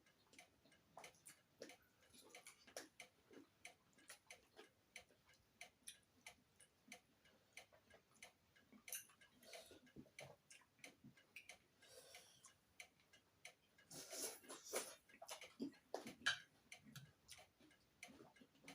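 Faint, irregular clicks and smacks of someone eating and chewing, with a louder cluster of them about fourteen seconds in.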